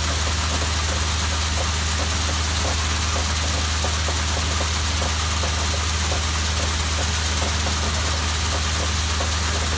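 Steady, loud drone of the rig's engine, with the hiss of water jetting out of a drill bit as a downhole motor and bit are test-run at the surface.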